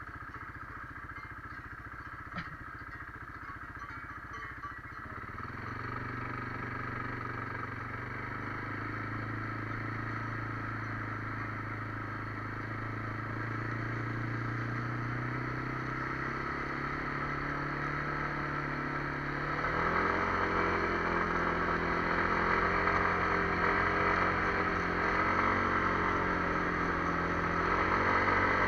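Kymco MXU 300 ATV's single-cylinder engine running under way. Its steady note grows from about five seconds in, then shifts and gets louder about twenty seconds in.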